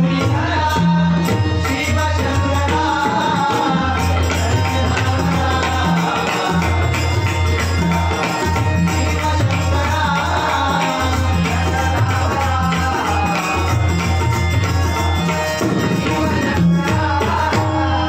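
Live devotional bhajan music: a male voice sings a melody over a tabla rhythm with a strong, booming low drum, accompanied by bright metallic jingling percussion.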